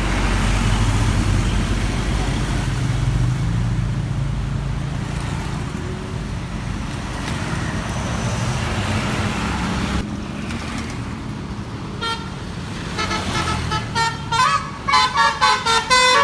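Large diesel bus engine and traffic rumbling steadily. From about three-quarters of the way in, a multi-tone 'telolet' bus horn plays a melody of several pitches in rapid, repeated toots, loudest near the end.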